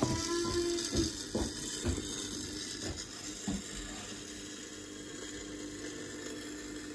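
Morphy Richards 44600 toasted sandwich maker crackling with irregular sharp clicks over a steady hum while it burns. The clicks thin out after about three seconds. The owner puts the fire down to the cord between its top and bottom plates burning out and arcing.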